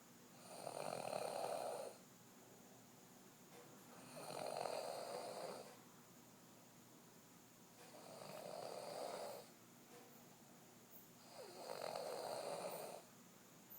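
A sleeping woman snoring: four long, rasping snores about every three and a half to four seconds, with quiet breathing gaps between them.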